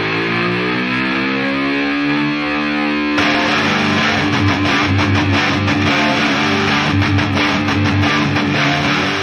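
Intro music: a sustained electric guitar note that bends in pitch, with drums coming in about three seconds in.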